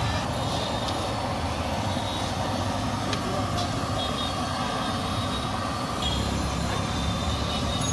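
Battered fritters sizzling in a large kadai of hot oil, over a steady low rumble of street traffic, with a few light clicks.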